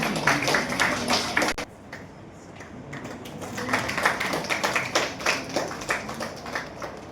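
Audience clapping, in two spells with a short lull between.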